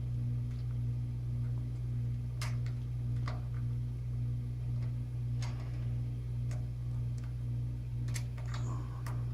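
Scattered small clicks and taps, about half a dozen, of a nut and bolt being worked into the mounting holes of a plastic router-table switch housing, over a steady low electrical hum.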